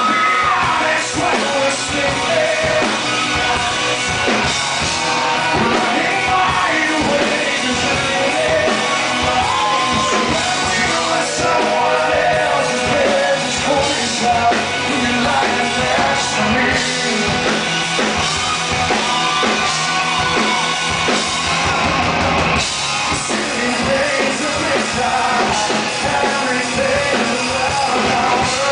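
Live rock band playing with a male lead singer, the sung melody running over a full band.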